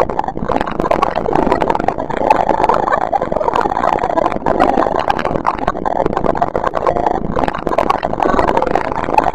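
Experimental noise soundtrack: a loud, dense, machine-like mass of sound, steady throughout and crackling with many small clicks.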